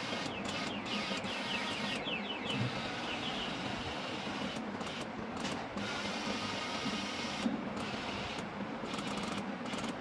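Small four-wheeled robot car's electric drive motors whirring as it is driven and turned by radio remote, with brief drops in the whine several times.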